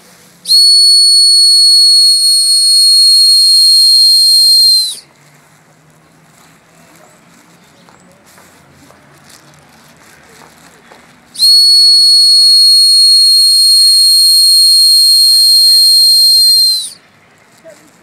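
A whistle blown in two long, steady, high-pitched blasts of about four and a half seconds each, some six seconds apart, used as a conditioned signal to call birds.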